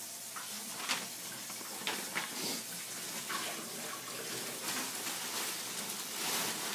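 Water running from a tap while the SodaStream bottle is rinsed clean under it, with a few sharp knocks and splashes.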